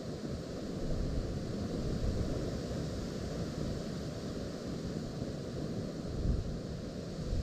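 Strong gusty wind buffeting the microphone, a low rumbling rush that swells about a second in, with a brief stronger gust near the end.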